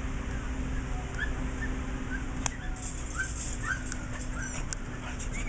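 Boxer dog whimpering: a string of short, high, rising whines, starting about a second in, over a steady low hum.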